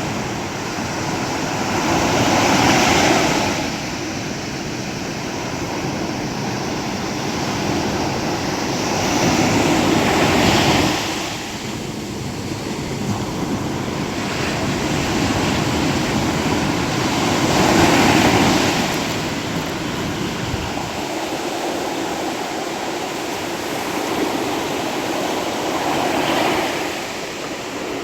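Sea waves breaking, four surges of surf about every seven to eight seconds over a steady wash of water.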